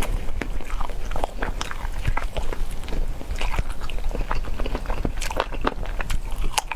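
Close-miked chewing and biting of spicy peanut chicken: a quick, irregular run of mouth clicks and smacks.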